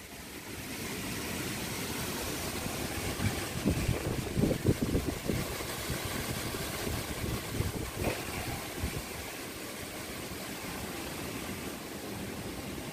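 Strong wind blowing steadily, with gusts buffeting the microphone about four seconds in and again around eight seconds.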